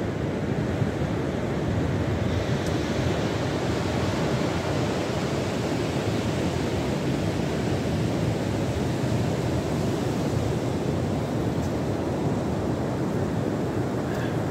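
Sea surf breaking and washing up a sandy beach: a steady rushing noise, with wind on the microphone.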